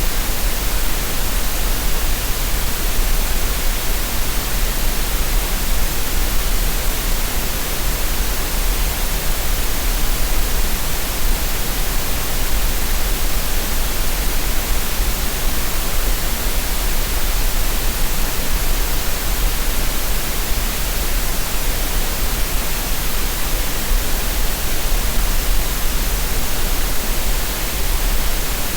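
Steady generated green noise: an even, unbroken hiss that spreads across the whole range, with a strong low rumble underneath.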